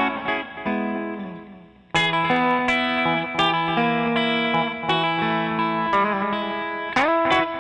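Background music led by a guitar playing plucked notes. It fades low about a second in and comes back in full about two seconds in.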